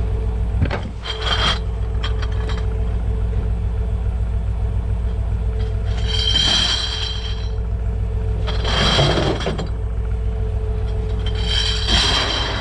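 Pickup truck engine running with a steady low rumble. Four short scraping, clinking noises come over it, about 1, 6, 9 and 12 seconds in.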